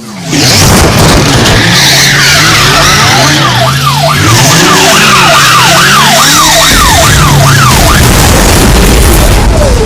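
Loud siren-like wail: a pitch sweeping up and down several times a second over a low wavering tone and dense noise. It starts abruptly and runs at full level.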